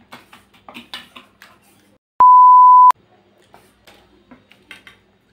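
A loud, steady electronic bleep at a single pitch, lasting under a second and starting about two seconds in; all other sound drops out while it plays, as with a censor bleep. Before and after it come light clicks and clinks of a wire whisk in a glass bowl and a spoon in a steel bowl.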